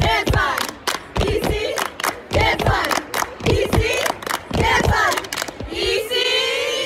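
A group of teenage girls chanting a team cheer together in rhythm, punctuated by sharp hits. It ends in a long drawn-out group shout about six seconds in.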